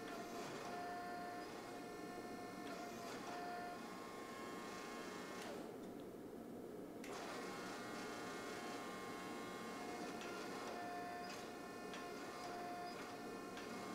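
Hydraulic forging press's electric motor and pump running, a steady whirring hum with several steady tones.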